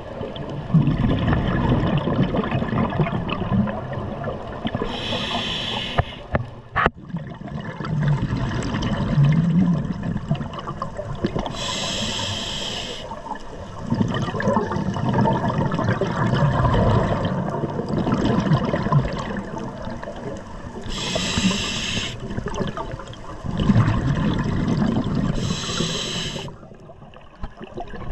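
Scuba diver breathing through a regulator underwater: four short hissing inhales a few seconds apart, each followed by a long rush of bubbling exhaled air. A single sharp click about seven seconds in.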